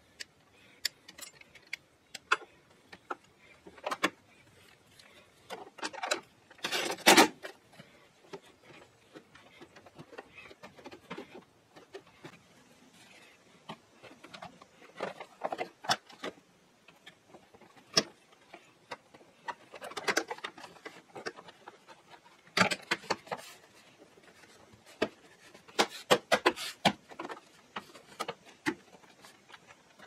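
Scattered clicks, taps and rattles of plastic trim and small metal parts being handled and fitted in a car's floor area. The loudest is a short cluster of knocks and clatter about seven seconds in, with further bursts of clicks later.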